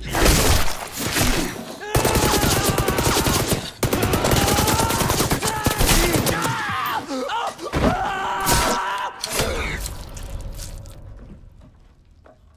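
Sustained automatic gunfire, a dense fusillade of shots, with men's voices crying out in the middle. It dies away near the end.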